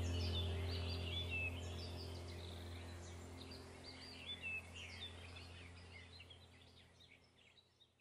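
Birds chirping over a low steady drone, the whole sound fading out gradually.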